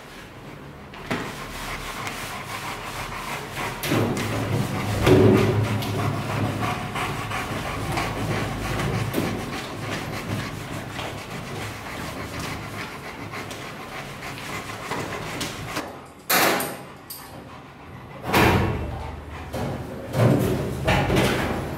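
Towel rubbing over a wet Rottweiler's coat. In the last few seconds come several sharp knocks and clanks as the stainless-steel grooming tub's hinged side door is opened.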